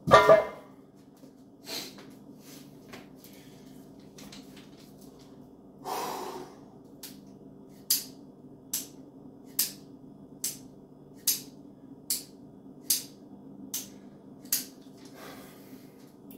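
A loaded barbell with bumper plates is set down on the floor platform with a heavy thud at the start. From about 8 s in, a carbine dry-fires: nine sharp trigger clicks, evenly spaced about a second apart.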